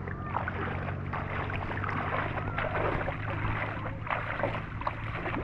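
Water splashing and sloshing, with a steady low hum underneath.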